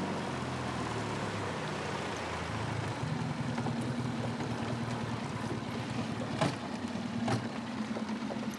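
Small boat motor running steadily, pushing the boat along with a low hum and the wash of water, its hum shifting in pitch about three seconds in. Two light knocks sound near the end.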